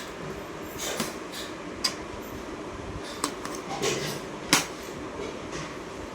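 A handful of light, irregular clicks and taps of small hard objects being handled, the loudest a little past halfway, over a steady background hum.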